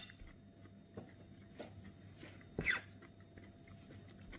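Faint chewing of a mouthful of papaya salad, with a few soft clicks and one short squeak falling in pitch about two and a half seconds in.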